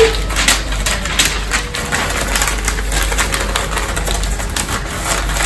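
Sheets of paper being crumpled and torn by hand: an irregular run of crackles and rustles.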